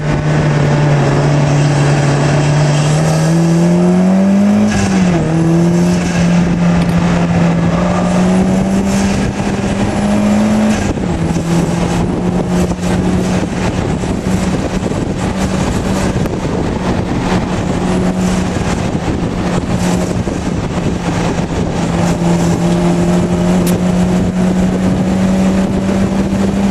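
Turbocharged Mazda Miata 1.8-litre four-cylinder engine pulling hard on track, climbing in pitch and dropping sharply with an upshift about five seconds in and again about eleven seconds in, then held at steady high revs. Wind rushes through the open cockpit over the engine.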